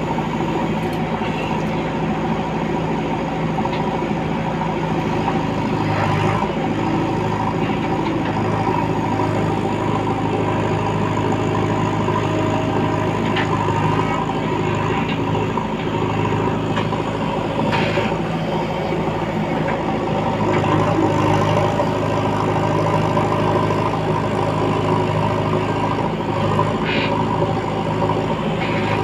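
JCB 3DX backhoe loader's diesel engine running steadily at working speed, with a few short knocks about six, fourteen, eighteen and twenty-seven seconds in.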